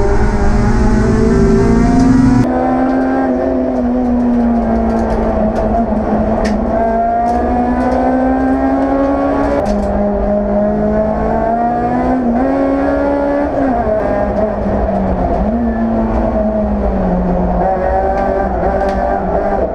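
EP3 Honda Civic Type R race car's four-cylinder engine running hard at high revs. Its pitch climbs slowly and drops sharply several times, at gear changes or lifts. Another Civic racing close by also adds engine noise.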